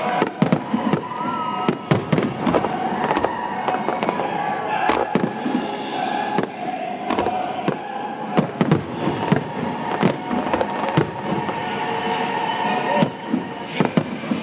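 Aerial firework shells bursting in a rapid, irregular barrage of sharp bangs and booms, several a second at times, over a steady background murmur.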